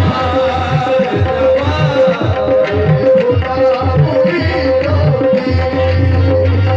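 Live qawwali music: a harmonium holds steady notes while a tabla plays a running pattern of strokes, its bass drum bending up in pitch, under a singing voice.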